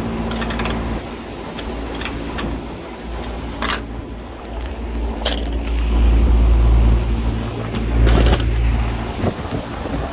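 Ratchet wrench clicking and metal tools knocking on a condenser's sheet-metal housing, over a steady low machinery hum. A heavy low rumble from about six to nine seconds in is handling noise as the phone is moved.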